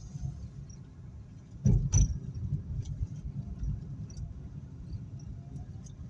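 Low, steady road and engine rumble heard from inside a moving car, with two heavy thumps close together about two seconds in and a few light clicks.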